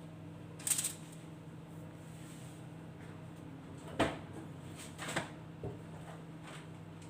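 A few short, light clicks and knocks of a fork and tray while handling pastry turnovers, over a faint steady hum.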